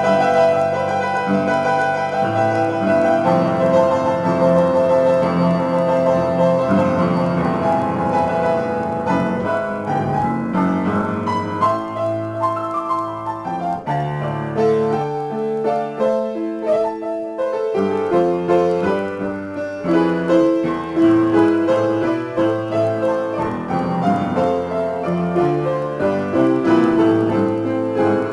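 Upright piano played solo: an improvisation in A minor, with a continuous flow of notes in both bass and treble. The bass thins out briefly about halfway through.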